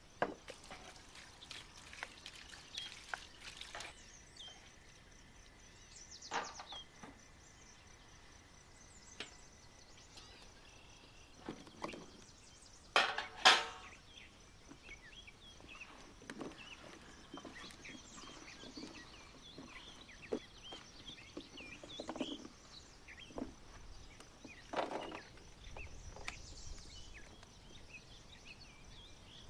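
Scattered knocks and clinks of cooking utensils and dishes during outdoor food preparation, the loudest a pair of knocks about thirteen seconds in, with birds chirping in the background.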